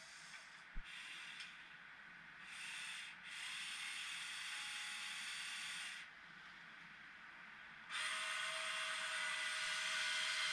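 Huina 1580 metal RC excavator's electric motors and gearboxes running as the arm and bucket move: a hissing whir that runs for about three seconds, stops, and starts again about eight seconds in with a faint steady whine. A small knock about a second in.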